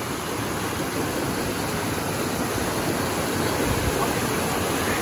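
Mountain creek rushing and splashing over rocks in a steady wash of whitewater.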